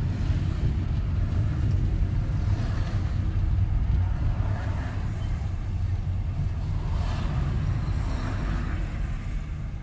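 A car being driven: steady low rumble of engine and road noise.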